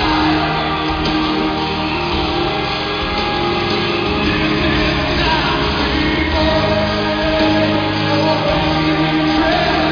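Live rock ballad played by a full band with a male lead vocal, heard as amplified sound in a large hall.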